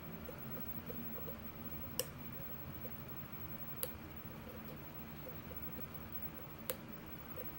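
Lock pick working the pins of a pin-tumbler challenge lock under tension: a run of faint small ticks from the pick against the pins, with three sharper clicks at about two, four and seven seconds in.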